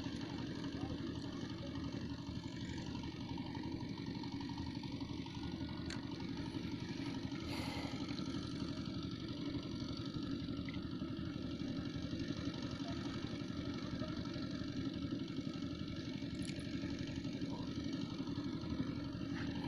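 An engine running steadily at a low, even rumble.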